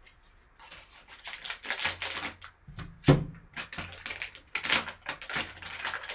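Foil wrapper of a sealed trading card pack being torn open and crumpled by gloved hands: a run of crackling rustles, with one sharp snap about three seconds in, the loudest moment.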